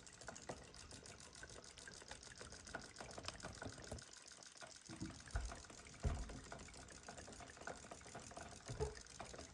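Faint handling noises: scattered light clicks and rustling, with a few soft thumps, the loudest about six seconds in.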